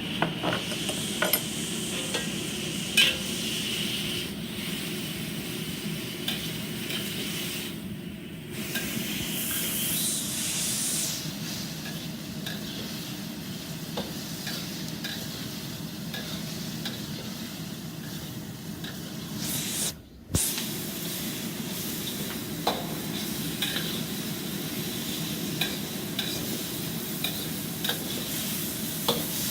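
Scallops and black bean garlic sauce sizzling in a hot wok, with a spatula clinking and scraping against the wok now and then as they are stir-fried.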